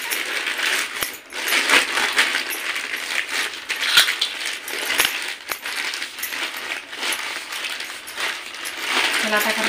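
Plastic carry bag crinkling and rustling as hot steamed rice-flour dough is kneaded by hand inside it, the bag and hands rubbing and knocking against a steel plate with a few sharp clicks.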